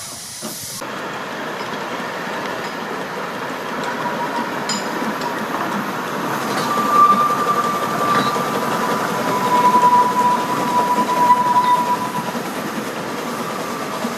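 Narrow-gauge train running along the track, its rolling noise building, with a high wheel squeal lasting several seconds in the middle.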